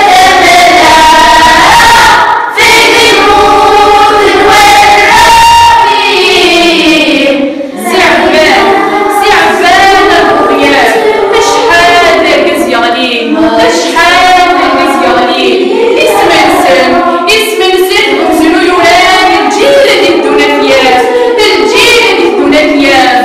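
Children's choir singing unaccompanied, holding long notes together. About eight seconds in, a lone girl's voice takes the lead with quicker, more broken phrases.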